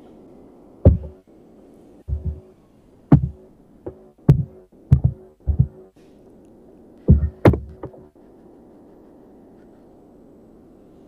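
About a dozen heavy, low thumps at uneven spacing, clustered between about one and eight seconds in, over a steady low hum.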